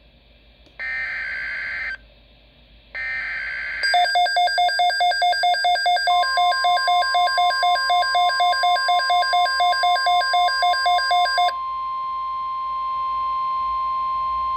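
Emergency Alert System activation on NOAA Weather Radio: two raspy SAME data bursts of the alert header, each about a second long, then the Midland WR-100 receiver's own alert beeping rapidly, about four times a second, for some seven seconds. A steady single-pitched warning alarm tone comes in under the beeping and holds on alone after the beeping stops.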